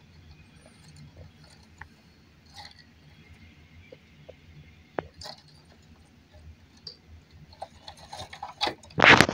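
Handling noise: a low hum with scattered faint clicks and taps, then a run of loud rustling and knocking in the last second or so.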